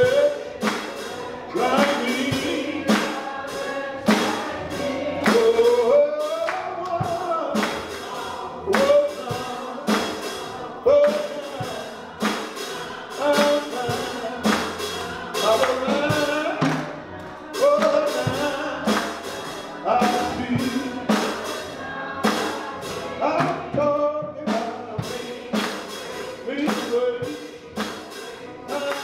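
Live gospel music: singing over a steady percussion beat.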